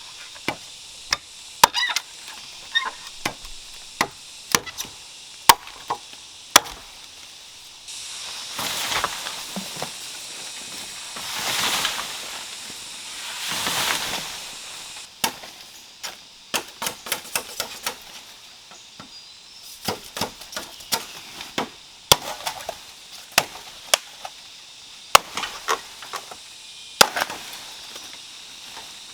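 Bamboo being chopped with a blade: sharp strikes at irregular intervals, sometimes several in quick succession. About eight seconds in comes a stretch of continuous noise that swells twice before the strikes resume.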